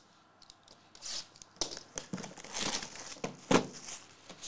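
Plastic shrink wrap being torn and crinkled off a trading card box: irregular crackling rustles with sharp snaps, starting about a second in.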